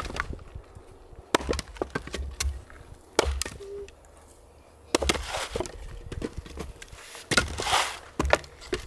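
Fiskars splitting axe chopping firewood on a wooden block: about four sharp strikes roughly two seconds apart, some followed by the crack and rustle of splitting wood.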